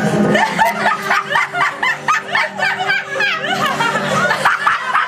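Several voices laughing at once in rapid, overlapping cackles and snickers, over a steady low hum.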